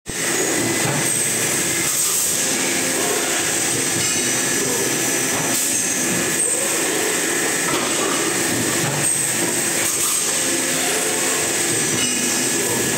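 IML injection molding machine running its cycle: a steady mechanical din with a constant high whine and hiss, and a few short knocks as the mold opens and closes.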